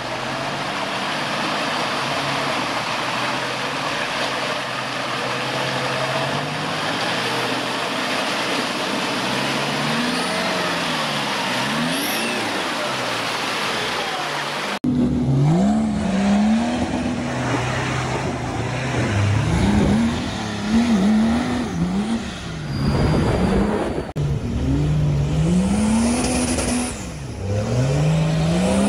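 Off-road 4x4s working through deep mud. First a Toyota Hilux pickup's engine runs under load as it crawls through a water-filled rut, with mud and water churning under the tyres; from about halfway on, a 4x4's engine revs up and down again and again as it fights up a mud track.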